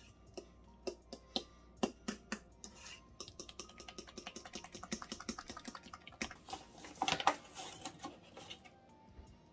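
Utensil stirring thick batter in a stainless steel mixing bowl: quick wet clicks and scrapes against the metal, with a louder scraping stretch about seven seconds in, then quieter near the end.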